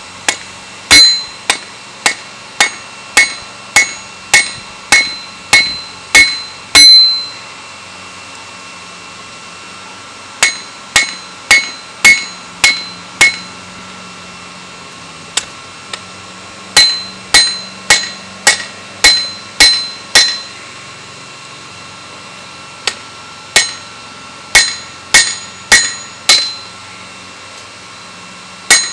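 Hand hammer striking red-hot steel on an anvil, drawing out a spearhead blade, in four runs of about two blows a second with short pauses between. Each blow leaves a bright metallic ring from the anvil.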